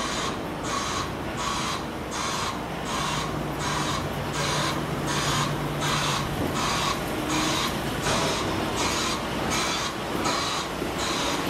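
Class 37 diesel locomotive with its English Electric V12 engine running as it approaches slowly: a low steady drone that grows stronger for a few seconds in the middle, over a high hiss that pulses evenly about twice a second.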